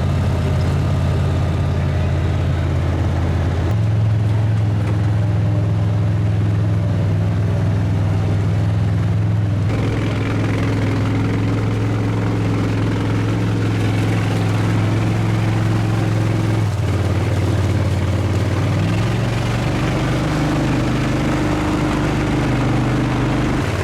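All-terrain vehicle engine running steadily under way, its note shifting to a new steady pitch several times as engine speed changes.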